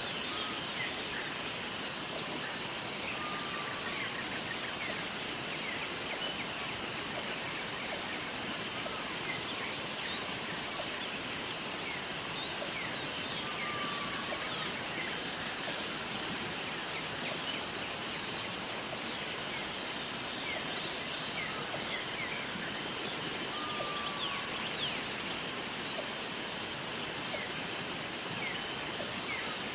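Steady rush of a waterfall, with a high, even buzz that comes in six times, each lasting about two and a half seconds and about five seconds apart. A few short, soft chirps are scattered through.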